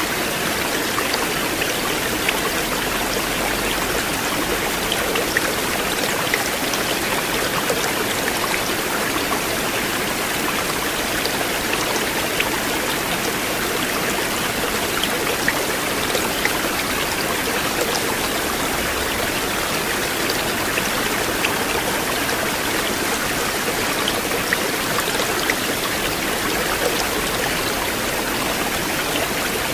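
River water flowing steadily, with small splashing ticks scattered through the rush.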